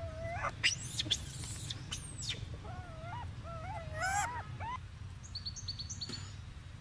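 Infant rhesus macaque giving short, wavering coo calls: one at the start and several in quick succession about halfway through. A few thin, high chirps come near the end.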